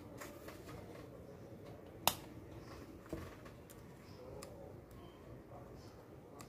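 Homemade logic probe's metal tip tapping onto a motorcycle battery terminal: a sharp click about two seconds in and a fainter one a second later, over quiet room tone.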